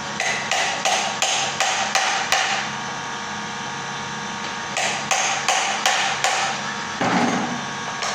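Hammer blows, about three a second, in two runs: about eight strikes, a pause of a couple of seconds, then about six more. A steady hum runs underneath.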